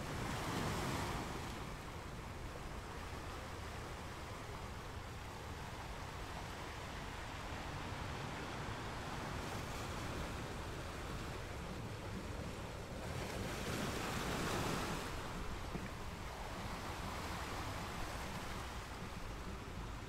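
Ocean surf on a sandy beach: a steady wash of water with waves breaking, one about a second in and the biggest about two-thirds of the way through.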